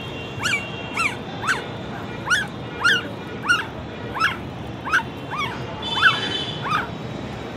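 Puppy yelping over and over, short rising-and-falling cries about two a second.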